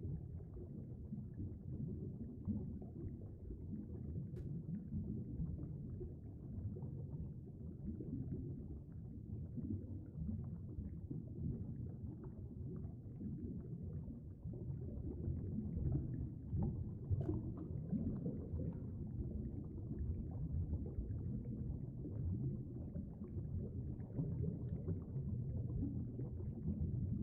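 Steady, muffled low rumble of moving water heard by a camera submerged in a stream, with a couple of faint ticks.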